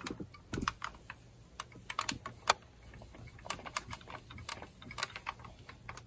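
Irregular light clicks and taps as a Sunbeam 3035 steam iron is pressed and moved over folded cotton fabric on an ironing board.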